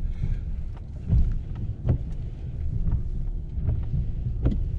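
Pickup truck running with its Western HTS snowplow blade down, pushing snow: a steady low rumble heard from inside the cab, with a few sharp knocks scattered through.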